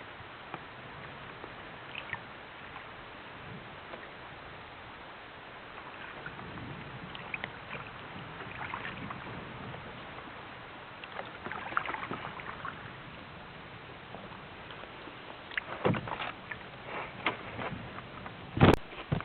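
Canoe on the water: a steady water hiss with scattered knocks of paddle or gear against the hull, and two louder thumps near the end.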